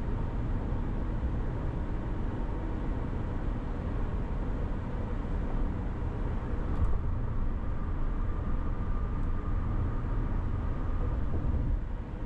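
Car cruising on a freeway at about 120 km/h, heard from inside: a steady low road and tyre noise with engine hum. There is a faint steady tone near the middle of the range and one brief tick about seven seconds in.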